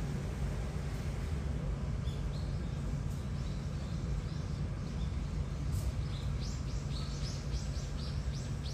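Small birds chirping: scattered single chirps, then a quick run of short falling chirps, several a second, from about six seconds in, over a steady low background hum.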